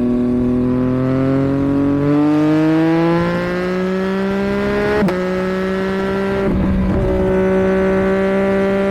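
2022 Yamaha MT-09's 890 cc inline three-cylinder engine through an aftermarket Roadsitalia homologated exhaust with catalyst, its revs climbing steadily for about five seconds. A sharp click and a small dip in pitch come about five seconds in, and the engine then runs on at a steady pitch.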